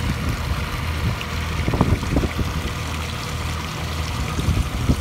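Water rushing and splashing in the wake of a small battery-electric boat under way, over a steady low hum. There are a few low thumps about two seconds in.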